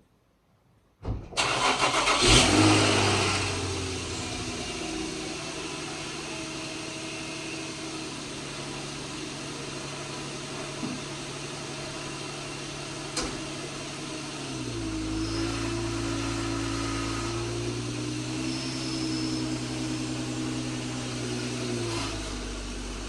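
Infiniti FX35's 3.5-litre V6 being started: it catches about a second in, flares up loudly for a couple of seconds, then settles into a steady idle. About halfway through the engine note deepens and holds lower for several seconds before easing back near the end.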